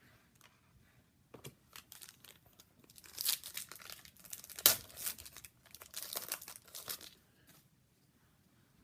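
A hockey card pack's wrapper being torn open and crinkled: a run of irregular rustles and rips that starts about a second in, peaks in the middle with one sharp rip, and stops about two seconds before the end.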